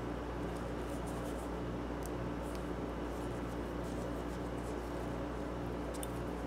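Faint small clicks and scrapes of a hex key working the set screws of a steel die holder, over a steady low hum.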